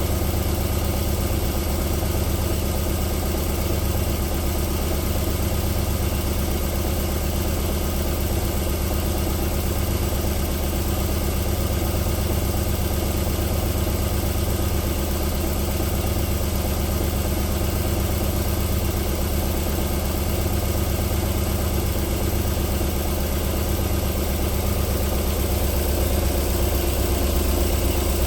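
Alfa Romeo 3.0 24-valve V6 idling steadily on a cold engine, running smoothly with no knock yet.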